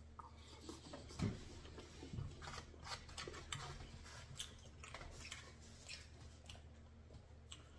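A person quietly chewing barbecue chicken, with scattered faint clicks and taps of a fork in a foam takeout tray; a slightly louder soft knock comes about a second in.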